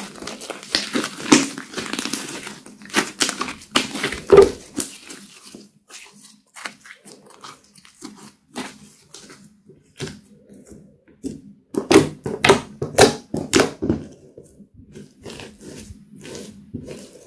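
Thick slime with eyeshadow mixed in, squeezed, folded and pressed by hand, giving runs of squishing, crackling and popping. It is busy in the first few seconds, sparser in the middle, and busiest again about twelve to fourteen seconds in.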